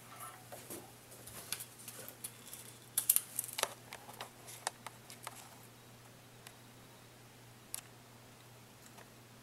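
Scattered light clicks and taps from handling a circuit board in a helping-hands clamp while soldering a component, with a quick cluster of clicks about three seconds in and only occasional ones after that.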